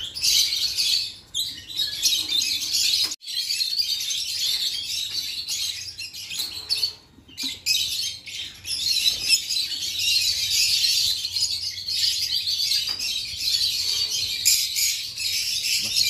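A flock of small caged parrots chirping and chattering, many voices at once with no let-up, cutting out briefly about three seconds in and dipping again about seven seconds in.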